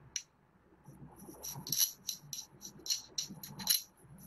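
Cleaver blade cutting down through a crunchy green-coated block, a quick run of crisp crackles starting about a second in.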